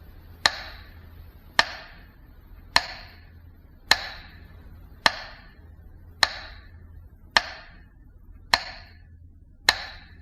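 Metronome ticking slowly and evenly, about one sharp click every second and a bit, each with a short ringing tail, over a faint low hum.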